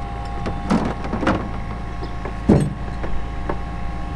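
Electric hoist motor of a small quayside crane running steadily, a constant hum with a steady whine over it, with a few brief louder knocks about a second and two and a half seconds in.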